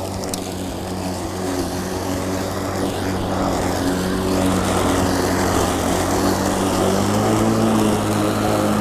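Greenworks 40V cordless electric lawn mower running and cutting grass: a steady motor-and-blade hum that grows a little louder over the first few seconds.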